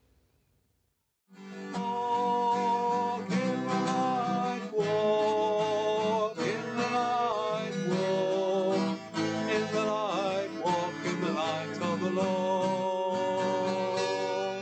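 Near silence, then about a second in, acoustic guitar music starts and plays on at an even level.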